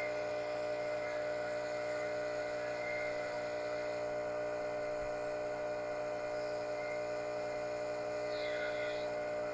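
Vevor electric diesel transfer pump running steadily as it pumps diesel from a drum into a tractor's fuel tank, a constant motor hum with no change in pitch. It pumps at about 10 gallons a minute.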